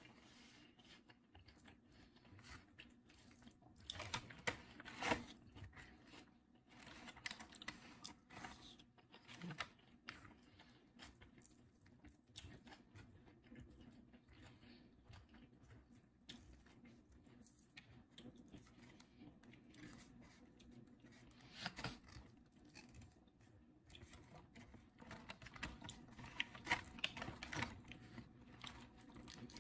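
Faint chewing and eating sounds of a person eating a takeout meal, with scattered soft crunches and clicks. A few louder clusters come a few seconds in, past the middle and near the end.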